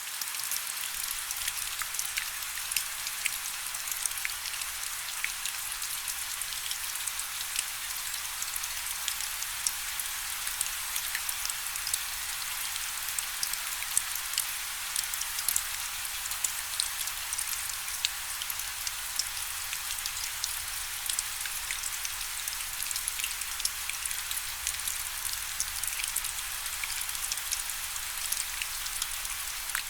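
Steady rain falling: an even hiss made of many individual drops, with sharper drop ticks scattered through it.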